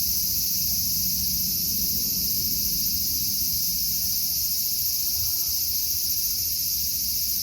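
A steady, high-pitched chorus of insects, with a low rumble beneath it.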